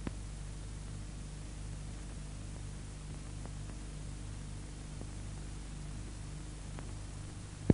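Steady hiss and low hum of an old film soundtrack between narration lines, with a single sharp click near the end.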